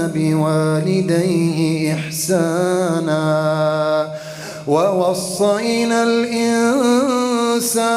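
A man's voice reciting the Quran in melodic tajwid style, holding long, ornamented notes. It breaks off briefly about halfway through, then resumes on a rising note.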